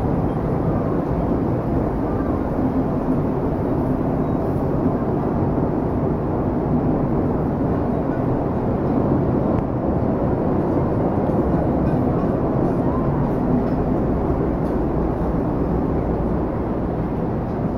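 Steady low background din with no distinct events.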